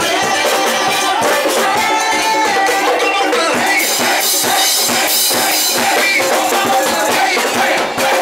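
Loud dance music with a steady beat, played over a party sound system, with a brighter shaker-like hiss for a couple of seconds a little past the middle.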